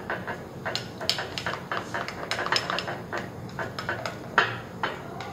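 A clear plastic stirrer clicking and scraping against a glass dish as glue slime with glitter is stirred, in quick irregular taps.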